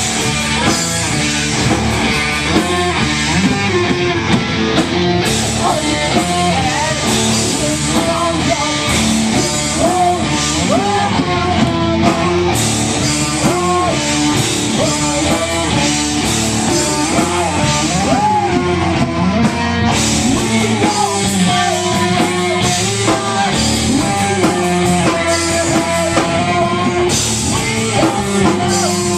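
Live rock band playing a song: guitars over a drum kit.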